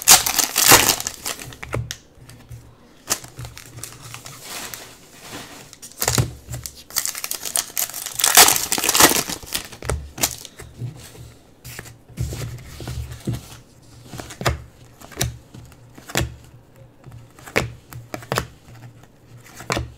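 A foil trading-card pack is torn open and crinkled, in two noisy bursts, one at the start and one about eight seconds in. Between and after them the cards are handled, slid and flicked against each other, making a run of short, sharp clicks.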